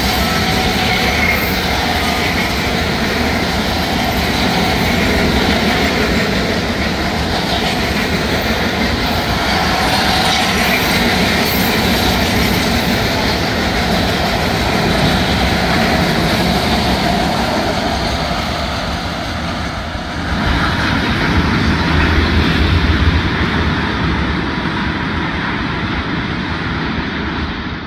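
Loaded freight cars of a BNSF slab train rolling past close by, their steel wheels running on the rails with a steady rumble and clatter. About twenty seconds in the sound shifts, with a deeper, louder rumble for a few seconds.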